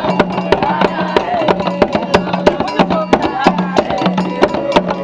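Children singing together with quick, rhythmic handclapping, several claps a second, over a low pulsing note.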